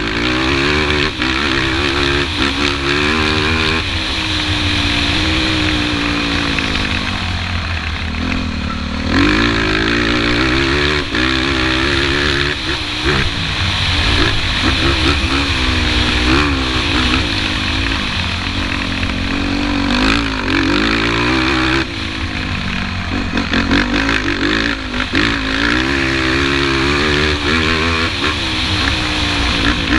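Sport quad's engine revving up and dropping back again and again as the rider accelerates, shifts and backs off on a dirt track, with steady wind and riding noise on the on-board microphone.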